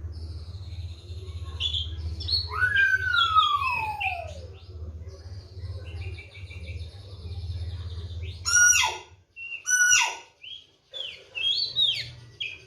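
Oriental magpie-robin (kacer) singing a varied song of whistles and trills, including a long falling whistle early and two loud, sharp downward-swept notes about eight and a half and ten seconds in. A low steady hum underneath stops about nine seconds in.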